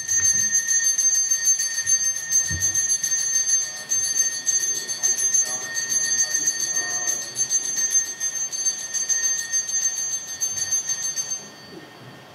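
Small hand bell of the kind rung in temple worship, shaken rapidly and without pause in a bright, steady ringing that stops near the end.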